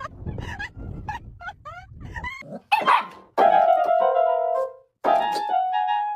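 A dog yapping in quick short barks over a low wind rumble. After about two and a half seconds, an electronic keyboard sounds held notes, two chords in turn, as a dog presses the keys with its paws.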